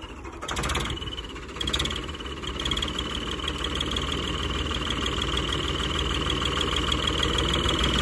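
Ford 3600 tractor's three-cylinder diesel engine running as it pulls forward. A little under two seconds in, the add-on whistle fitted to the tractor comes in: a steady high whistle that holds to the end.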